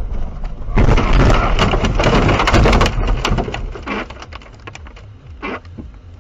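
A loud, crackling crash starting suddenly about a second in, with crunching and clattering for about two seconds and then scattered clicks as it dies away: the impact of a car collision.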